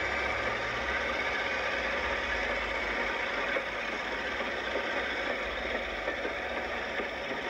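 Class 45 'Peak' diesel locomotive with its Sulzer twelve-cylinder engine pulling away with a train of coaches. A low engine rumble eases off within the first second as the locomotive draws away, leaving a steady rolling hiss with light clicks and knocks as the coaches pass.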